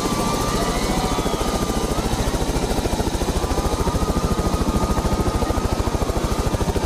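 Helicopter rotor turning on the ground, a fast, even beating chop over a steady engine sound.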